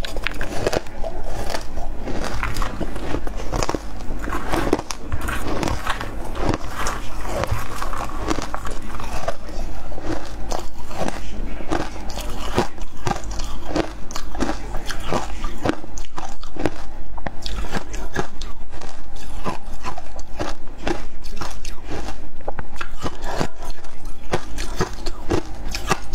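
Shaved ice being bitten and chewed: a rapid, continuous run of crisp crunches, picked up close by a clip-on microphone.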